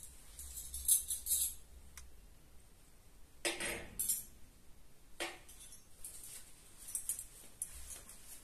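Metal cutlery clinking and jingling as forks and spoons are laid on a table, with a couple of louder, fuller clatters about three and a half and five seconds in.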